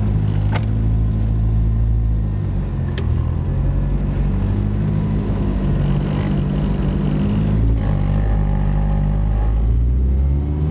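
The engine of the VW Golf II with its turbocharged 1.8 four-cylinder, running at low revs while driving, heard from inside the cabin. Two sharp clicks come about half a second and three seconds in.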